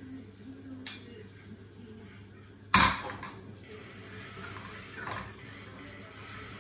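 A metal ladle working in a small iron pan on a portable gas burner, with one sharp clank of metal on the pan about three seconds in and a softer scrape around five seconds.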